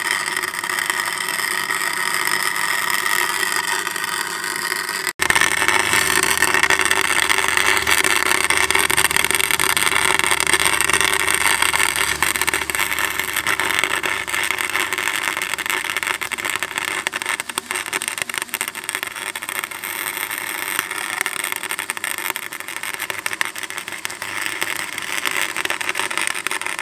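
Gasless MIG welder turned all the way up, its arc crackling steadily while welding inside a Nissan 350Z limited-slip differential to lock it solid. There is a brief break about five seconds in.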